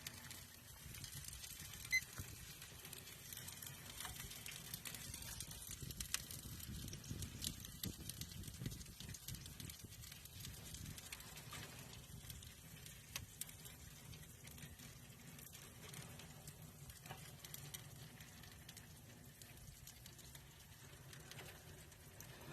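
Faint crackling and popping from an offset smoker cooking chicken legs, over a low steady rumble.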